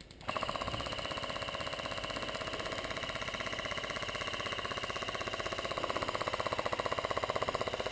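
Airsoft electric rifle firing one long full-auto burst: a steady, rapid rattle of shots and gearbox cycling, many shots a second without a break.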